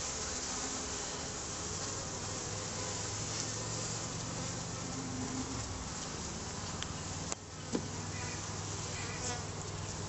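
Honeybees humming steadily around an open top-bar hive, a dense colony buzz. A light knock about seven seconds in comes from the wooden top bars being set back in place.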